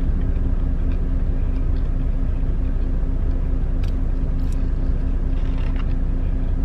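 Semi-truck's diesel engine idling in the cab: a steady low rumble with a constant hum. A couple of light clicks come about four seconds in.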